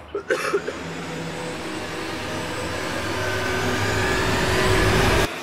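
A rushing noise that swells steadily louder for about four seconds and then cuts off abruptly, with a short burst of voice just before it builds.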